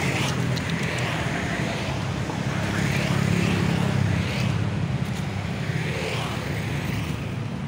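Roadside traffic noise: a steady low vehicle engine hum, swelling slightly in the middle.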